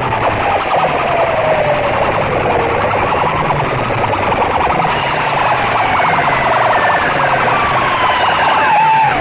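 A siren sound effect blasted through a sound system's stacked horn loudspeakers. The wail falls slowly in pitch, then turns into a fast up-and-down warble near the end, over a low repeating pulse.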